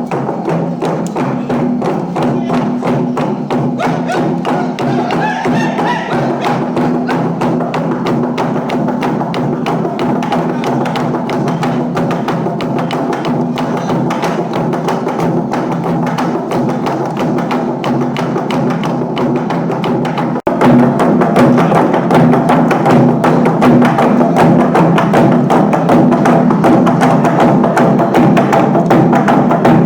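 Naga log drum, a large hollowed tree-trunk drum, beaten in a fast, dense run of hollow wooden strikes over a steady low ring. About twenty seconds in, the sound breaks off for an instant and comes back louder.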